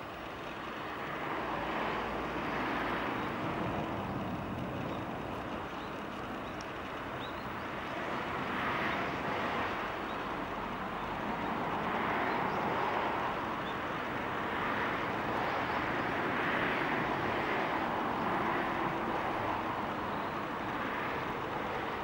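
Outdoor background noise of distant vehicles: an even rushing hum that swells and fades several times.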